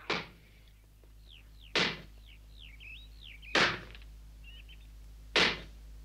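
Wooden mallet driving a wooden stake into the ground: four heavy blows, evenly spaced just under two seconds apart.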